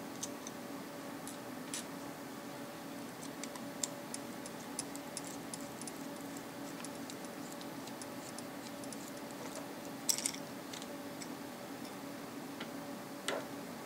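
Small clicks and light metal taps of a small screwdriver and fingers working apart the chrome body and grille head of a Samson Meteor USB microphone, over a steady faint hum. A louder clatter comes about ten seconds in and another sharp click near the end.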